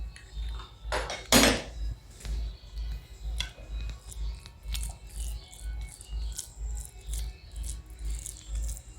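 Background music with a deep, steady beat about twice a second, under close-miked eating and handling sounds of a meal of khichuri and fried foods: a loud rustle or scrape about a second in, then scattered small clicks and smacks.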